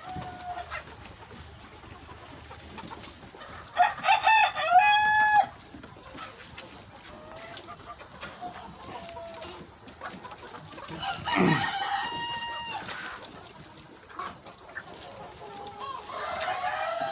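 A flock of Sonali chickens, mostly roosters: three loud rooster crows, about 4 s in, about 11 s in and near the end, over softer scattered clucking.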